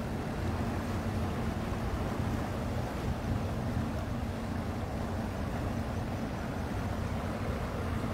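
A motor running steadily with a low, even hum, under outdoor wind noise.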